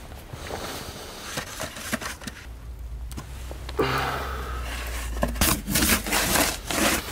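Deep, fresh snow crunching and scraping as a snow-buried metal step ladder is dug out and lifted clear, then boots tramping through the snow, with a quick run of sharp crunches near the end.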